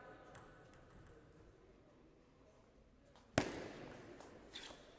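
Quiet hall with a few faint ticks, then one sharp knock about three and a half seconds in that rings on briefly.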